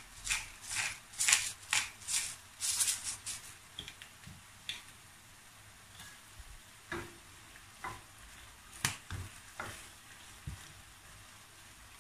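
Short rasping strokes, about two a second, for the first three or four seconds as black pepper is added by hand to chicken and mushrooms cooking in a steel pan. After that, a faint sizzle from the pan with a few scattered soft clicks.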